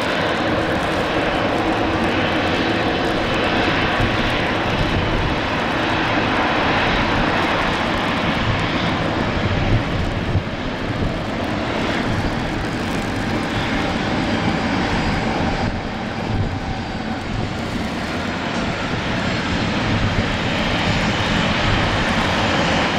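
Boeing 777-300ER's twin GE90 jet engines running at taxi power as the airliner taxis past: a steady, loud rushing whine that holds even throughout.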